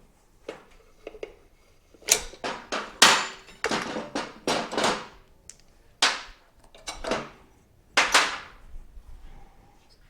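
A run of sharp metal clanks and knocks, about a dozen, each with a short ring, bunched from about two seconds in to near the end: tools and metal parts being struck and handled during a motorcycle teardown.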